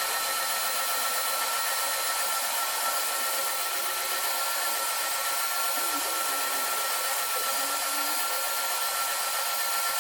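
Triton TSPST450 oscillating spindle and belt sander running steadily, a constant motor hiss with a high whine.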